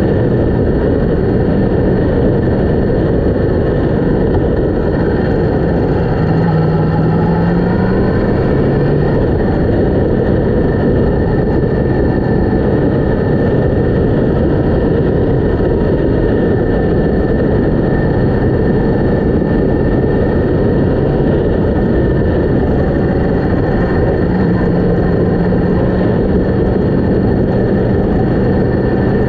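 Steady wind noise on the camera microphone over a Yamaha MT-10 motorcycle's inline-four engine running at road speed. The engine note rises and falls in pitch about seven seconds in, and again near the end.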